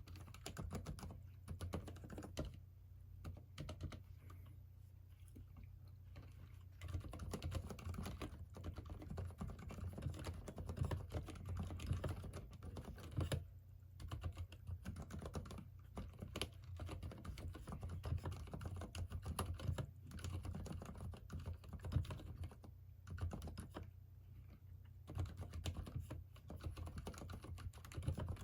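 Continuous typing on a Durgod Tauche mechanical keyboard with Cherry MX Silent Red switches: rapid, dampened key presses with a few brief pauses.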